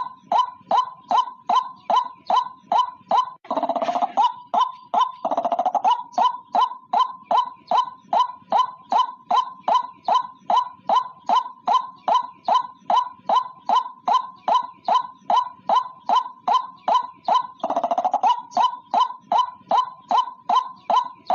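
White-breasted waterhen calling: a steady, rapid series of short notes, about three a second, broken three times by a longer, rougher phrase.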